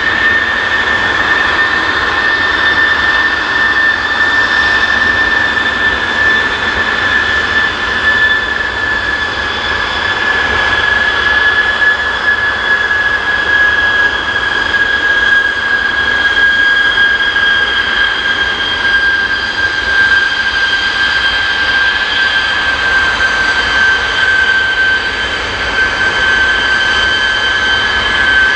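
Boeing 737-800 BBJ2's CFM56-7B turbofan engines running on the ground during an engine test run: a steady jet roar with a high whine that slowly falls in pitch.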